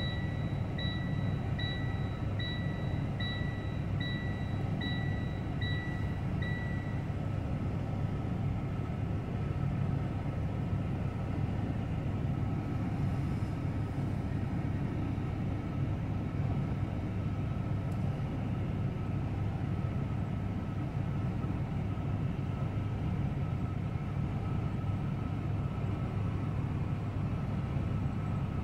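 Steady low mechanical rumble of heavy vehicles or rail traffic. A high electronic beep repeats a little more than once a second, like a reversing or warning beeper, and stops about six seconds in.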